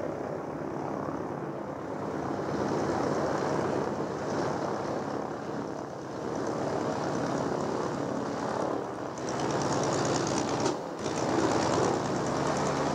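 Boeing Stearman biplane's radial engine running on the ground with the propeller turning: a steady engine note that gets somewhat louder about two seconds in and again near the end, with a brief drop-out about eleven seconds in.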